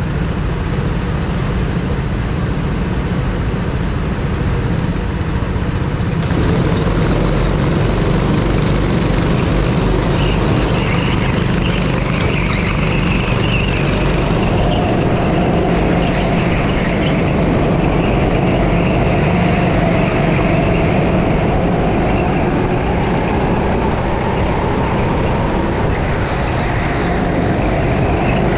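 A 6.5 hp go-kart engine running, heard from on board the kart. It gets louder and fuller from about six seconds in as the kart picks up speed, and its pitch then rises and falls as it revs up and down through the corners.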